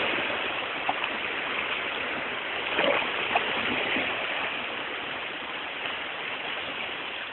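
Small sea waves washing against shoreline rocks: a steady rushing hiss of water that eases off over the first couple of seconds.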